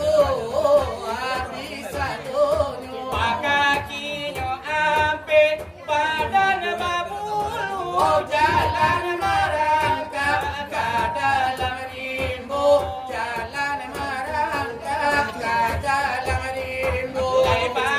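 Selawat dulang: a wavering, ornamented vocal line sung without a break, over a quick steady beat struck on a brass tray (dulang).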